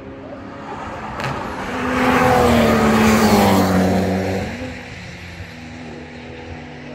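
A car passing by at speed on the race track, its engine growing loud and then dropping in pitch as it goes past, loudest for about two seconds in the middle. A quieter steady engine sound carries on after it fades.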